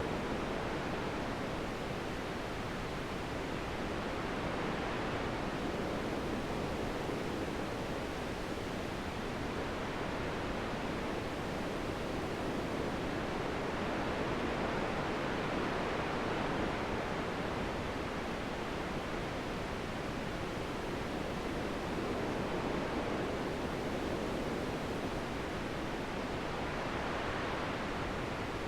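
Wind blowing steadily, a soft even rush that swells and eases slowly every few seconds.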